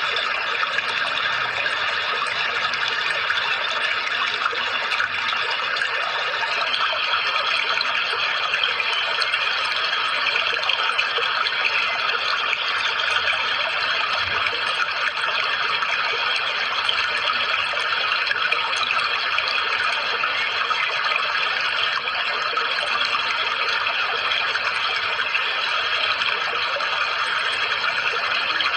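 Steady rushing water, running evenly without a break, with faint thin steady tones above it.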